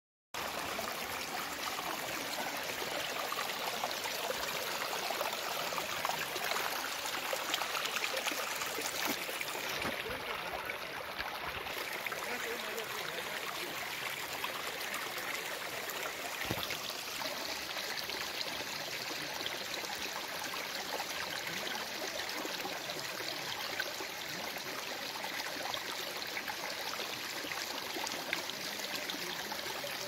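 Shallow mountain stream running and splashing over rocks: a steady rush of water that starts abruptly just after the beginning.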